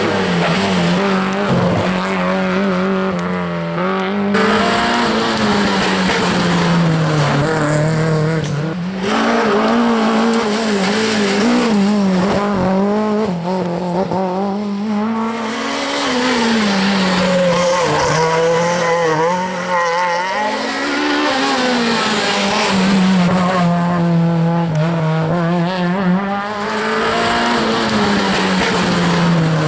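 Rally hatchbacks' engines revving hard through a junction, one car after another: the engine note rises and falls again and again as they brake, change gear and accelerate away.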